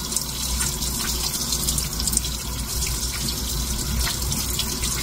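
Kitchen tap running steadily into the sink while hands are washed under it.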